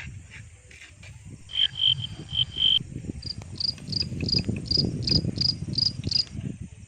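A run of short, high-pitched chirps from a small creature: about five lower notes, then about ten higher ones at roughly three a second. Uneven low rustling and knocking runs underneath them.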